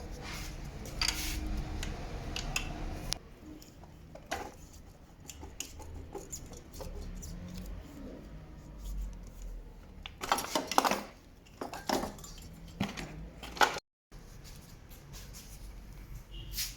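Scattered clicks and knocks of things being handled, clustered about ten to eleven seconds in, over a low steady hum.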